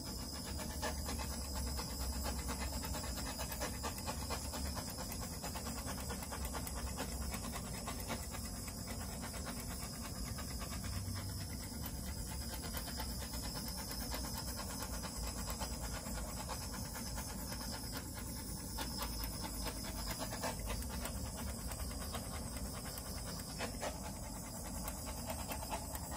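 Handheld butane torch flame hissing steadily as it is passed over wet acrylic pour paint to pop air bubbles.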